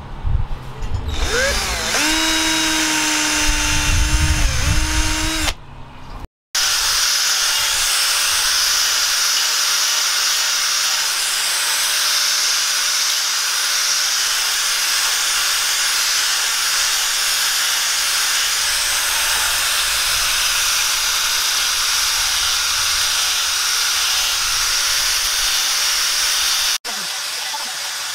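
A cordless drill runs and bores through the steel tang of a knife, its motor pitch dipping under load. After a cut, an angle grinder with a sanding pad runs steadily, sanding the wooden knife handle.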